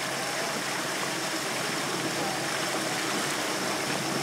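Steady, even rushing noise of a motorboat under way: water rushing past the hull and wind.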